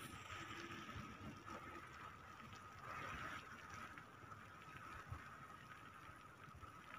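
Near silence: faint background hiss with a thin, steady high tone and a slight swell about three seconds in.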